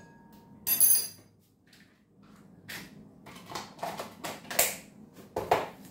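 A metal spoon clinks once against a glass mixing bowl about a second in, with a short high ring. Later comes a run of soft knocks and taps from kitchen things being handled.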